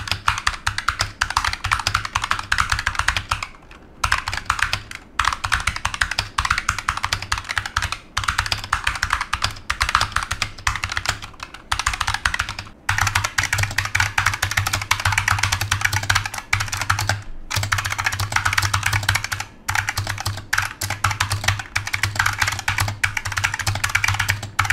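Fast, continuous typing on a Razer Huntsman Tournament Edition keyboard with linear optical switches, in a sound test that moves to a Razer Huntsman Mini near the end. It is a dense clatter of key presses with a few brief pauses.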